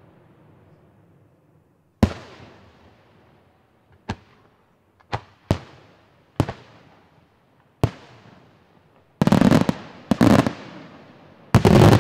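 Aerial fireworks shells bursting: a single sharp bang about two seconds in, then a string of separate bangs roughly a second apart, and near the end short dense volleys of rapid bangs. Each bang trails off in a fading echo.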